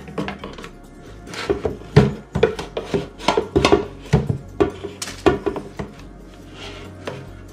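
Two spatulas scraping and knocking against the inside of an air fryer basket, a quick irregular run of clacks and scrapes for about four seconds, as a calzone that has broken is pried loose.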